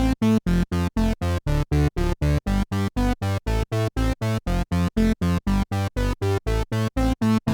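Roland Alpha Juno-1 synthesizer playing a fast run of short staccato notes, about four a second, the pitch changing from note to note, with silence between each note.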